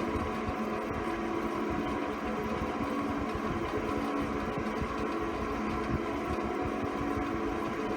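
ILG ILGJet UA-205 18-inch industrial box fan running steadily on low speed, its motor giving a rough, even drone of bearing noise: the original ball bearings are worn out.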